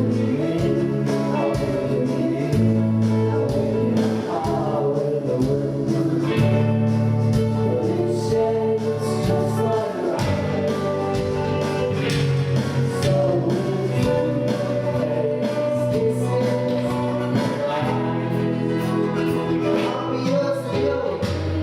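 Small band playing a song live through a PA: drums keep a steady beat under bass, guitar and a sung vocal.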